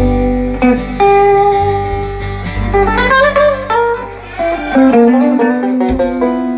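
Live bluegrass band (acoustic guitars, banjo and upright bass) playing the instrumental close of a song, with plucked guitar runs over the bass. It ends on a held chord about five seconds in.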